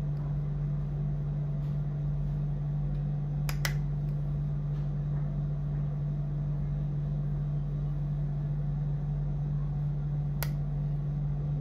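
A steady low hum, with two sharp clicks close together about three and a half seconds in and one more near the end.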